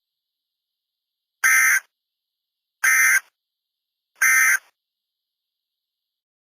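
Three short bursts of Emergency Alert System SAME data tones, each under half a second and about a second and a half apart: the end-of-message code that closes an EAS alert.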